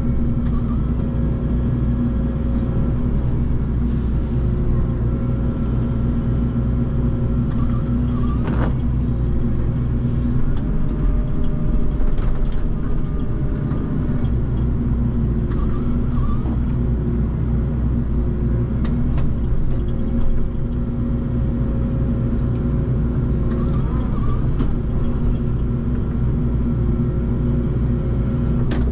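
John Deere excavator's diesel engine running steadily, heard from inside the cab as the bucket digs and moves dirt and rock, with a few sharp knocks.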